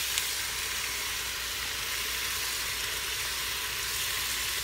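Boneless, skinless chicken thighs searing in oil in an Instant Pot's stainless steel inner pot on the sauté setting: a steady sizzle.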